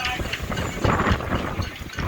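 Hurricane-force wind buffeting the microphone in uneven gusts, with a stronger gust about a second in.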